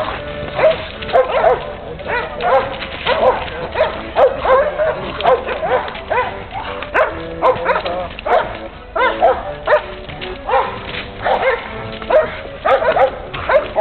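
Muzzled police guard dog barking aggressively and repeatedly, in quick runs of short barks with brief pauses, as it lunges on its leash.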